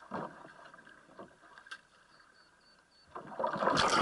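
A polo kayak rocking in calm water with a few faint knocks on the hull, then, about three seconds in, a sudden loud rush of splashing and churning water as the kayak rolls over and the camera goes under the surface.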